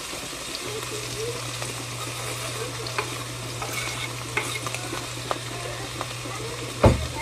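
Food sizzling in a frying pan, with scattered light clicks of a utensil against the pan or board. A low steady hum comes in under a second in, and there is a heavier knock near the end.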